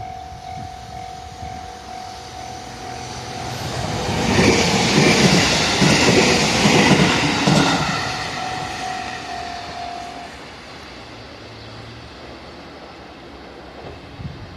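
JR 313 series electric multiple unit passing over a level crossing. It swells from about three seconds in, is loudest for about four seconds with a rhythmic clatter of wheels over rail joints, then fades away. A steady warning tone from the crossing signal sounds throughout the passage and stops about ten seconds in.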